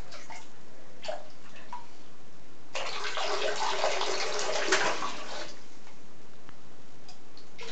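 Bathwater splashing and trickling as a toddler plays in the tub, a busy patch of about three seconds starting a little before the middle.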